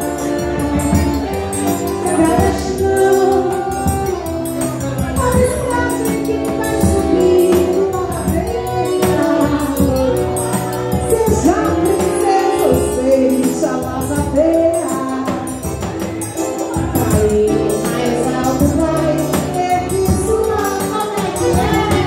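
Live forró trio music: a woman singing with a triangle ringing out the beat, over a zabumba bass drum and a Scandalli piano accordion.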